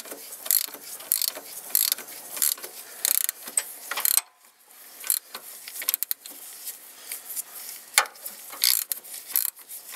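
Ratchet wrench clicking as it turns the centre screw of a harmonic balancer puller, in uneven runs of clicks with a short pause about four seconds in.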